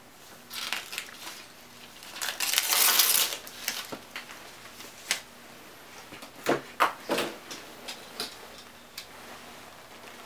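Paper handling: a loud rustle of notepad paper for about a second, about two seconds in, then several light knocks and clicks of small objects set down on a desk, loudest about six and a half to seven seconds in.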